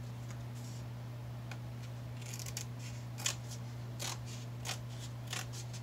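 Scissors snipping through fabric: a run of short, sharp cuts at irregular intervals, most of them from about two seconds in, over a steady low hum.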